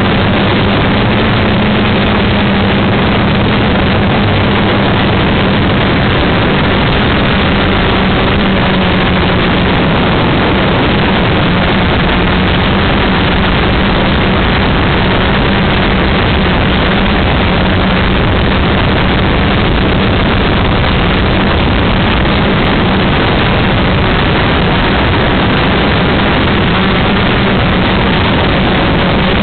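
Loud, steady engine drone and rushing airflow of a small aircraft in flight, heard from on board, with a steady low hum running under the noise.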